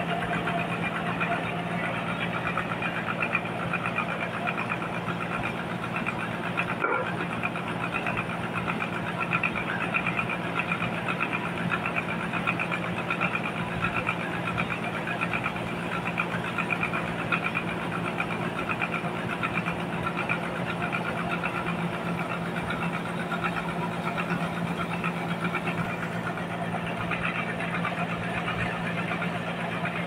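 Large band sawmill running steadily: a constant machine drone with a fast, even pulse, unchanging throughout.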